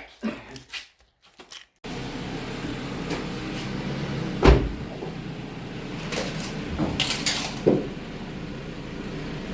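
Toyota RAV4 engine idling steadily, freshly filled with new oil, coming in abruptly about two seconds in after a few light knocks. A single loud thump about halfway through, and a few clicks near the end.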